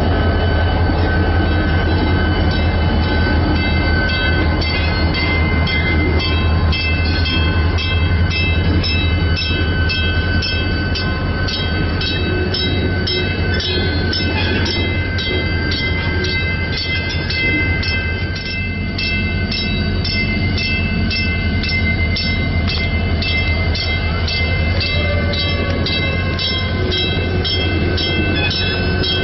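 Chicago & North Western 6847, an EMD SD40-2 diesel locomotive, running with a steady low engine rumble as it moves slowly along the track. Its bell rings throughout, about two strikes a second.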